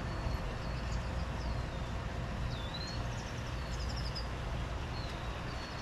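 Small birds chirping and whistling over and over with short high calls, one swooping down and back up about halfway through, over a steady low background rumble.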